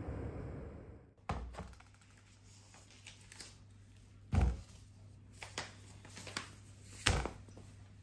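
A steady rushing noise for about a second, then quiet with a few dull thuds of groceries set down on a wooden table. A net bag of lemons lands about four seconds in, and a heavy bag of granulated sugar thumps down near the end.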